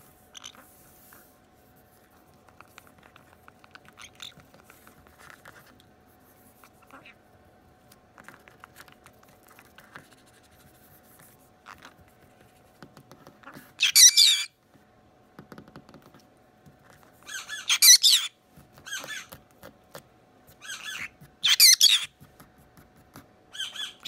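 Green-cheeked conures giving short, loud, harsh screeching squawks, a handful of them a second or two apart through the second half, with quiet rustling and small chatter before.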